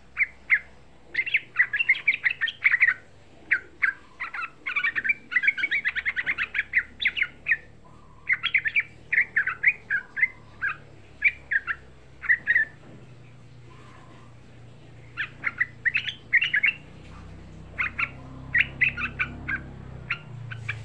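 Yellow-vented bulbul (trucukan) singing in quick, bubbly runs of short notes, pausing for about two seconds around the middle.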